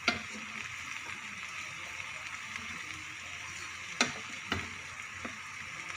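Mixed-vegetable omelette frying in oil in a pan: a steady sizzle, with a few sharp clicks of a utensil against the pan, the clearest about four seconds in.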